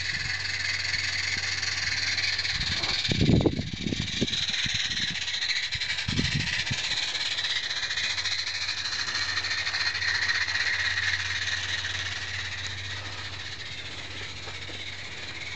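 A 16 mm scale live-steam garden-railway locomotive, a Roundhouse 'Charles' fitted with a chuff pipe, running with a hissing exhaust chuff that grows louder as it passes about ten seconds in and then fades away. A few dull thumps about three seconds in are the loudest sound.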